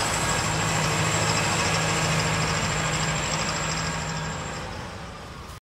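Mahindra Arjun tractor's diesel engine running steadily as it pulls a loaded grain trolley, a steady low hum that fades away in the last second or so and then cuts off.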